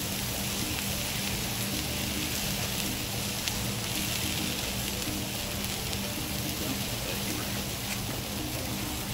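Chopped potatoes and green peppers sizzling steadily on the hot steel plate of a Blackstone 22-inch propane griddle.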